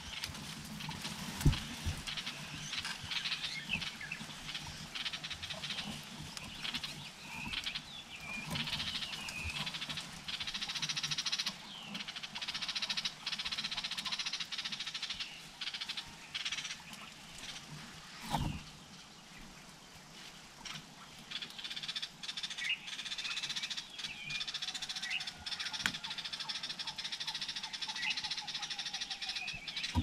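Leaves rustling and a few sharp knocks as a greater coucal moves through the plant next to the camera. Scattered short bird chirps and a steady high hiss sound in the background.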